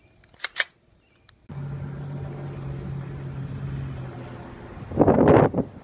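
Helicopter flying overhead: a steady droning hum that starts about a second and a half in, after two sharp clicks. Near the end it gives way to a short, loud rush of noise.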